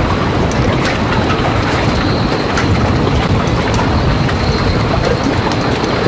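Steady wind buffeting the microphone, with irregular sharp clicks and ticks scattered through it.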